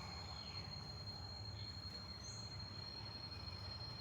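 Quiet room ambience during a held pose: a steady low hum with a thin steady high-pitched whine, and a couple of faint short chirps, one about two seconds in.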